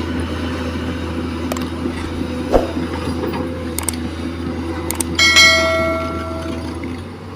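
Liugong excavator's diesel engine running steadily, with a single knock about two and a half seconds in and a ringing metallic clang a little after five seconds that fades over a second or so.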